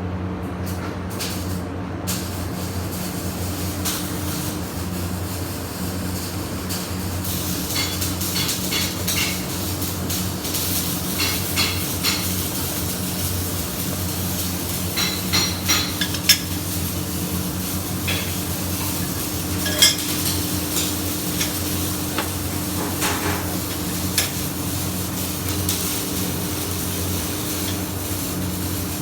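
Electric arc welding: a crackling, sizzling arc that starts about two seconds in over a steady electrical hum from the welding machine, with scattered sharp metallic clicks.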